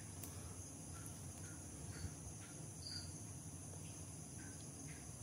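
Quiet room tone: a faint steady high-pitched whine over a low hum, with a few faint short ticks.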